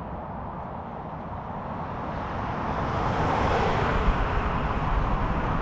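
Wind buffeting the microphone and the rolling rush of a RadRover electric fat-tyre bike riding along a trail, a steady noise that grows louder about halfway through.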